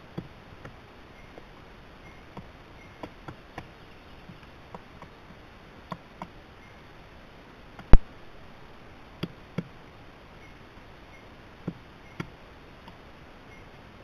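Irregular taps and knocks, with one much louder knock about eight seconds in: a pileated woodpecker, out of sight just below the camera, pecking at a decaying log.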